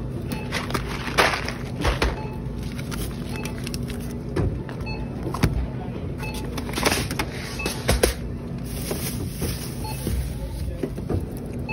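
Groceries being lifted out of a plastic shopping cart, with scattered knocks, clunks and plastic-bag rustles over a steady low hum.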